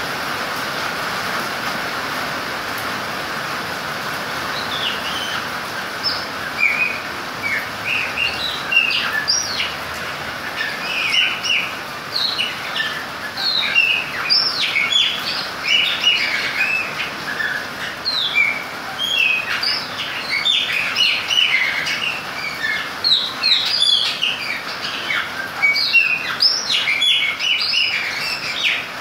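Chopi blackbird singing: a run of short, varied whistled and chirped notes that starts about five seconds in and grows denser, over a steady hiss of rain.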